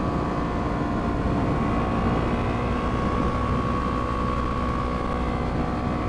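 Kawasaki Ninja 300 parallel-twin engine running at a steady cruising pace, its pitch holding almost level, under a constant rush of wind and road noise.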